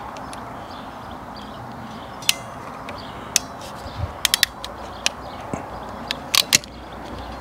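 Sharp metallic clicks of a hand ratchet crimping tool being squeezed onto a conductor: single clicks, then a quick run of four, then two more near the end.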